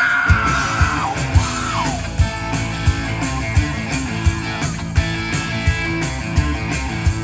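Rock music with electric guitar and a steady drum beat. A high held note in the first second or so slides down and fades.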